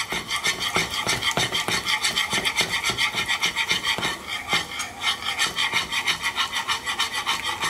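A wire whisk beating a thin sauce in a small saucepan, scraping the pan in quick, even strokes, several to the second, until it stops abruptly.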